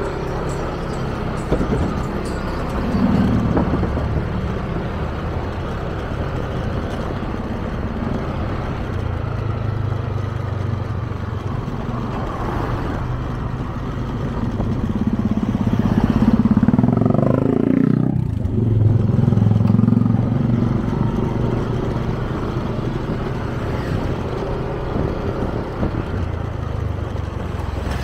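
Motor scooter engine running with road and wind noise, heard from the rider's seat. About two-thirds through, the engine note swells, sweeps sharply down in pitch, then picks up again.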